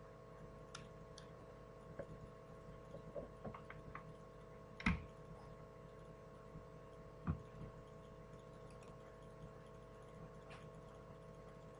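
Faint scattered clicks and taps of a mobile phone being handled, with its USB cable being unplugged and its battery taken out. There are two louder knocks, about five and seven seconds in, over a steady electrical hum.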